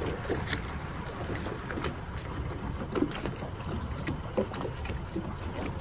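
Small boat out on the sea: wind buffeting the microphone over a steady low rumble, with scattered short knocks and splashes of water against the hull.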